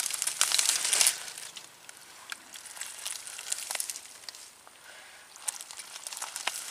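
Hands rustling and snapping dry leaves and charred stalks, with a dense burst of crackling in the first second and scattered crackles after.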